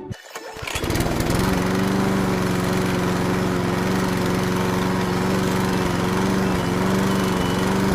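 A small motor starts up about half a second in and runs steadily, a constant hum over a loud hiss.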